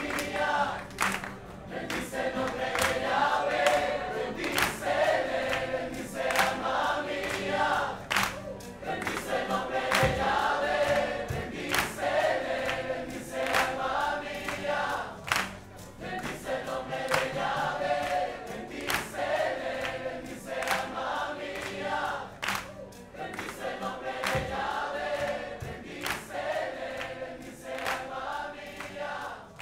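Live Christian worship music: a choir singing in repeated phrases over an acoustic band.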